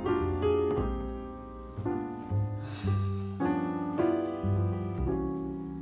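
Soft solo piano background music, single notes and chords struck and left to ring out.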